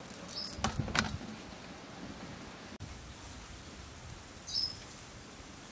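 A few sharp knocks about half a second to a second in, then a steady hiss with two short, high bird chirps, one early and one near the end.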